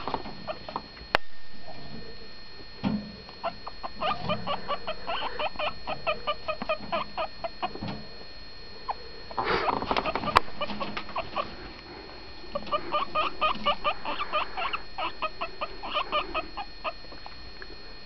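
Guinea pig squeaking in two long runs of short, quick squeaks, about five a second: a begging call for food it is waiting on. Between the runs comes a brief rustle and a sharp click.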